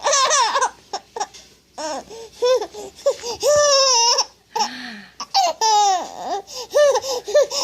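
Baby laughing: a run of short high-pitched giggles, with a couple of longer squealing laughs, set off by pretend sneezes.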